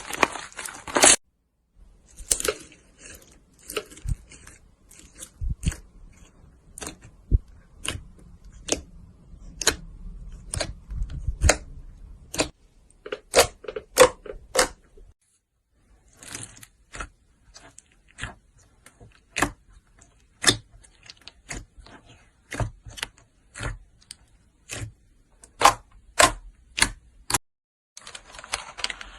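Slime being squeezed and poked by hand, giving a dense run of sharp clicks and pops, broken by a few brief complete silences.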